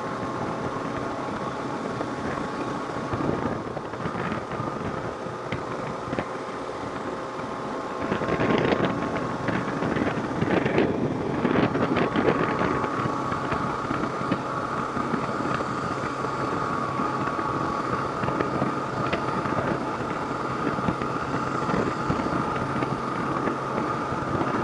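Kawasaki KLR650's single-cylinder engine running at steady road speed under heavy wind noise rushing past a cracked-open helmet shield. The wind noise grows louder about eight seconds in.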